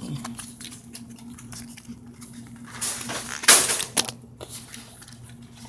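Rustling and small clicks of handling noise over a steady low electrical hum, with a louder rustle about three and a half seconds in.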